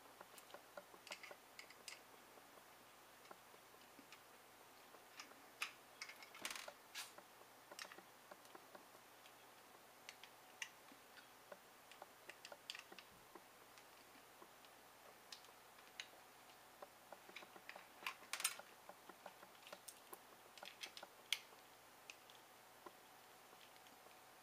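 Small screwdriver clicking and scraping against the screws of a laptop hard drive's thin metal mounting bracket as the screws are undone, in scattered irregular clicks and ticks, with a few louder clusters.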